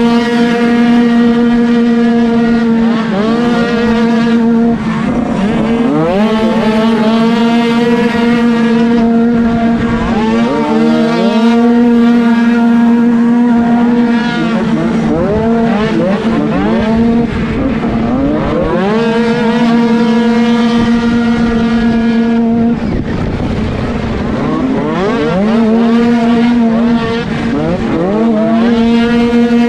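Small 49cc two-stroke dirt bike engines running at high revs, recorded onboard a bike. One engine holds a steady high-pitched note while the pitch repeatedly climbs as the bikes accelerate out of turns, with a second bike's engine close ahead. The revs drop briefly about ten seconds in and again over a few seconds after about twenty-three seconds.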